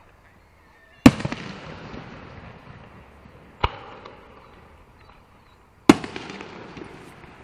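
Aerial firework shells bursting overhead: three sharp bangs, about a second in, midway and near the end. The first and last are the loudest, each trailing off in a long fading tail.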